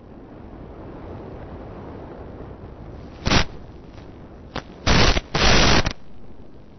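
Onboard audio from an FPV model aircraft in flight: a steady rushing noise, broken by loud bursts of harsh noise, a short one about three seconds in and two longer ones around five seconds in.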